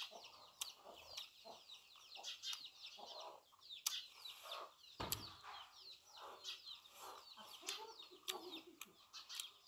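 Chickens clucking, with many short falling chirps of small birds over them and a few sharp clicks, the loudest about four and five seconds in.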